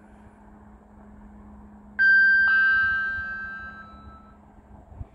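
Railway station public-address chime: two electronic notes about half a second apart, the second ringing on and fading away over about two seconds. It is the attention signal that comes before a platform announcement.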